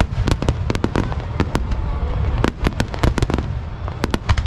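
Fireworks display: a rapid barrage of aerial shell bursts, several sharp bangs a second over a continuous low rumble.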